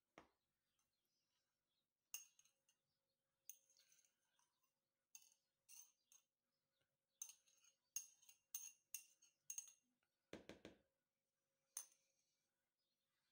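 Faint metal spoon clinking against a white bowl as chopped herbs are spooned and tapped off onto rice: about a dozen light, sharp clinks, with one duller knock about ten seconds in.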